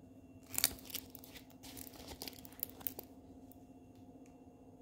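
Crinkling of a diamond painting canvas's clear plastic cover film as the canvas is handled: a flurry of crackles from about half a second in to about three seconds, the loudest near the start.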